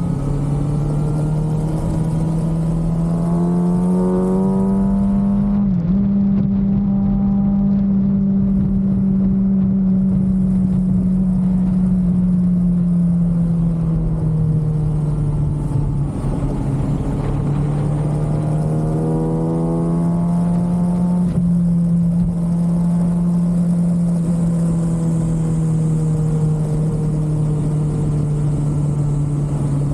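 Stock 2023 Kawasaki ZX-6R inline-four running steadily under way. Twice its pitch climbs, then dips sharply for a moment, as at a gear change: once about six seconds in and again near twenty-one seconds.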